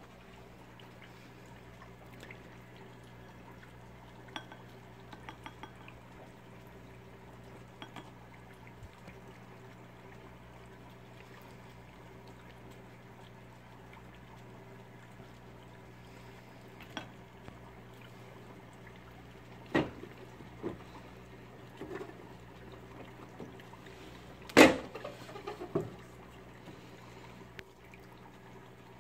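Steady water trickle and low hum from an aquarium, with small splashes and clinks as a fish net is worked in a small cut-glass dish. There is a sharper knock about two-thirds of the way through, and a louder, ringing clink of glass a few seconds later.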